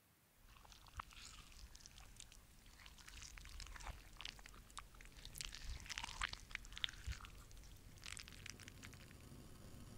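A spatula folding fried potatoes and onion into beaten egg in a glass bowl: faint, irregular wet squelching with scattered clicks and taps. It starts about half a second in.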